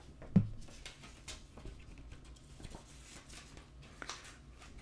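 Faint handling noises: light clicks and rustles of a plastic Blu-ray case and its paper insert cards being handled. There is a brief short vocal sound about half a second in.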